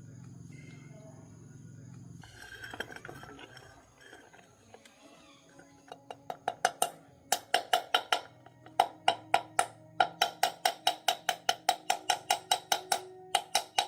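A low steady hum for the first two seconds. From about six seconds in, a rapid series of sharp ringing taps follows, about five a second in short bursts.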